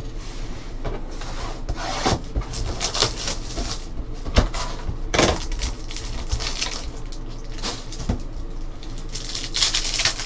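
Trading cards and foil card packs handled on a tabletop: irregular taps, slides and rustles. A foil pack wrapper crinkles and tears open near the end.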